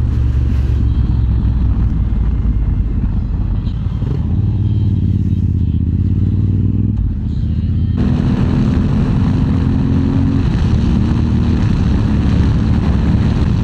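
Motorcycle engine running under way while riding, its note shifting a couple of times. Rushing wind noise grows louder about eight seconds in.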